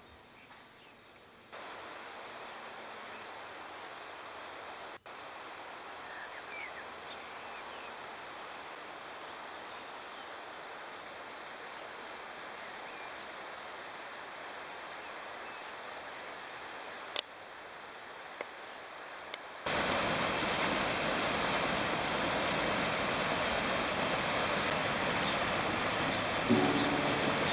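Rushing water of a rocky stream, a steady loud rush that cuts in suddenly about two-thirds of the way through, after a quieter, even outdoor hiss. Plucked guitar music comes in near the end.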